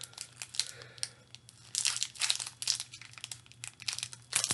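Plastic candy bar wrapper crinkling in bursts of sharp crackles as it is opened, loudest near the end.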